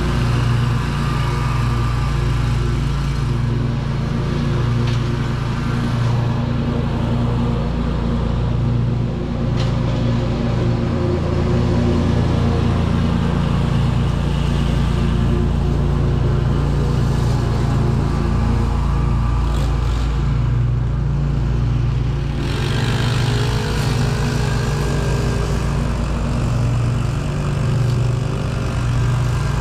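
Scag Tiger Cat zero-turn mower running steadily under load with its blades mowing and mulching leaves. About 22 seconds in the sound grows hissier, with a fast low flutter under the engine hum.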